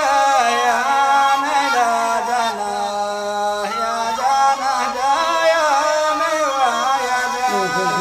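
A man singing a long, winding line in Middle Eastern style, drawn out with no clear words, over steady held notes of accompaniment.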